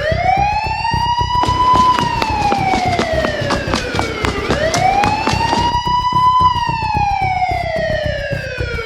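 A wailing siren slowly rising and falling in pitch, twice, about every four and a half seconds, over a pulsing low rumble. A rapid run of sharp clicks sits in the middle.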